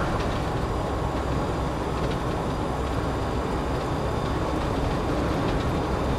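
Inside the cab of a 1987 Land Rover Defender 110 on the move: steady road noise from its 3.9-litre Land Rover V8 and tyres, a low even rumble at a constant pace.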